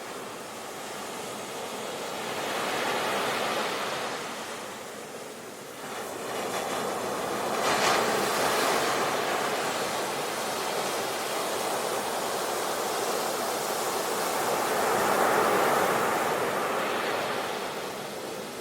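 Sea waves breaking and washing up the shore. A steady surf hiss swells and falls back three times, with the sharpest crash about eight seconds in.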